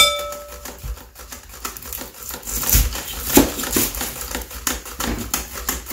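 Cucumber being sliced on a plastic mandoline slicer and an onion cut with a knife on a wooden board: a quick, uneven run of short slicing strokes, several a second. It opens with a sharp clink that rings briefly.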